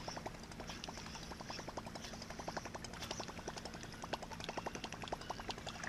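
Rapid, regular clicking, several clicks a second, over a low steady hum.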